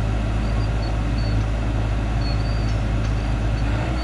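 Hyundai excavator's diesel engine running steadily under a working load.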